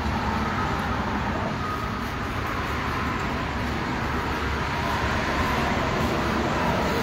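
Steady road traffic noise, an even hum with no distinct events.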